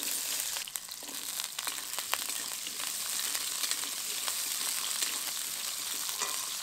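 Cut potato pieces frying in hot mustard oil in a kadai: a steady sizzle with many small crackles.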